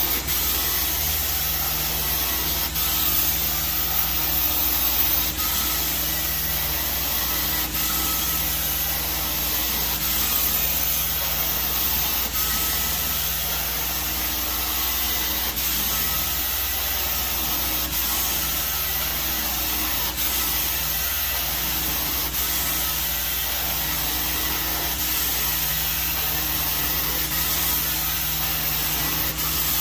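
Four-jet titanium carpet-cleaning extraction wand spraying and sucking as it is worked over carpet: a steady rushing hiss over a low hum, with a faint click about every two to three seconds.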